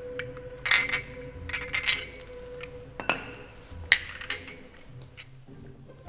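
Cups or glasses clinking against each other several times, each clink ringing briefly, over quiet background music.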